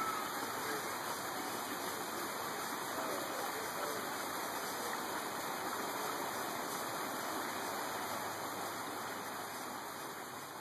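Steady rush of running water, an even hiss without rhythm, easing down slightly near the end.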